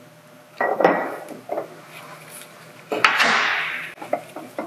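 Steel transmission gears and a shift collar from an NV4500 five-speed clinking and clattering against each other and the workbench as they are handled. Two louder bursts of metal clatter come about half a second in and about three seconds in, with smaller clicks between.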